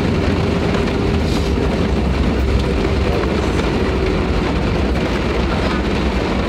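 Hail drumming on the fuselage of an Airbus A320 during its landing rollout: a dense, fast rattle of hits over the steady rumble of the engines and wheels in the cabin. A faint steady hum underneath fades out about halfway through.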